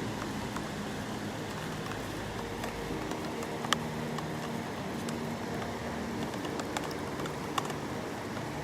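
Steady rain falling, with scattered sharp taps of drops striking a plastic Frisbee sheltering the camera, like rain on a tin roof.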